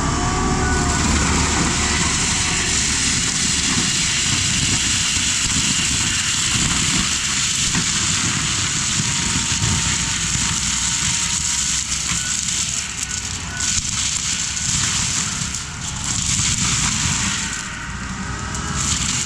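Case skid steer with a Shearex forestry mulching head running and shredding brush and wood, a steady engine and drum rumble under constant crackling and crushing.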